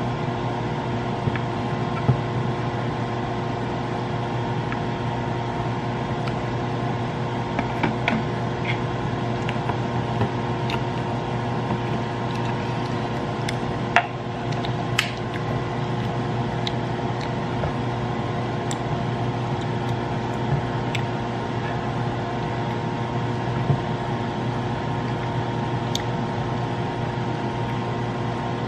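BlendJet portable blender running steadily as it blends chicken salad in its jar, with a few sharp clicks and knocks along the way.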